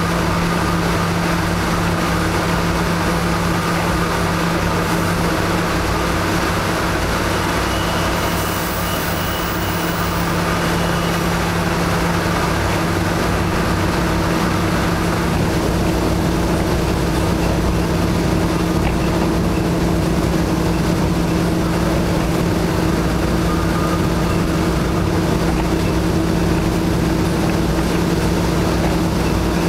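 KiHa 52 diesel railcar's engine running steadily, heard from inside the car as an even, loud hum with two low steady tones.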